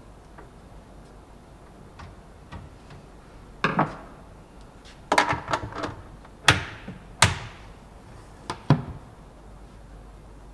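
Wooden knocks and clacks as an oak cabinet door panel is taken out of its opening and handled. About six sharp knocks in the second half, a couple with a brief ring.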